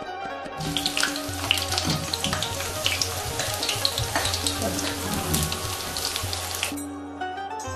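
Battered chicken pieces deep-frying in hot oil: a dense sizzle full of sharp crackles and pops. It starts suddenly about a second in and cuts off near the end.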